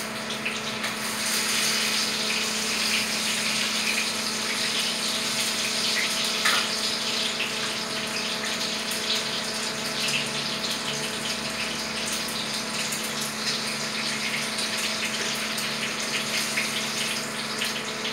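Food frying in hot oil in a pan on a gas stove, sizzling steadily with many small crackles and pops.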